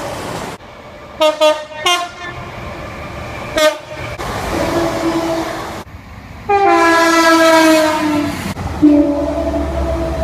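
Train horns sounding in a string of separate recordings: three short toots about a second in and another just before four seconds, then held blasts. The loudest is a long blast from about six and a half to eight and a half seconds, each blast a chord of two or more tones.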